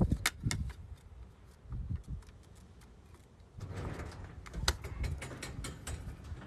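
A door being handled and opened: a few sharp clicks and knocks near the start, then from about three and a half seconds in a steady hiss with more scattered clicks.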